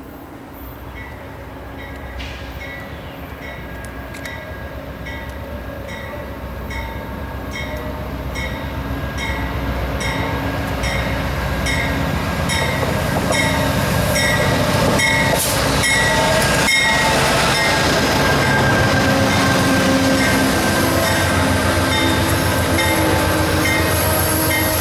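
A railroad grade-crossing bell rings steadily, about one and a half strikes a second, as an Amtrak Downeaster passenger train approaches, growing louder. Its locomotive and cars are rolling past by the end, with some wheel squeal.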